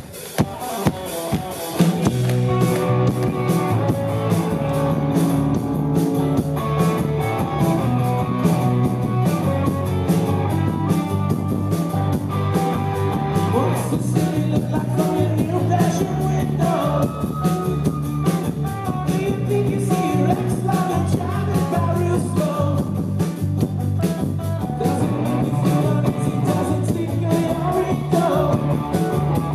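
Rock band playing live: drums, electric guitars and bass with a singing voice. A few lone drum beats open it, and the full band comes in about two seconds in.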